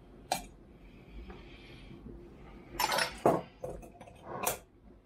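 Spoon clinking and knocking against a glass jar and a mixing bowl while cake batter is mixed: one clink shortly after the start, a quick cluster of knocks about three seconds in, and another near the end.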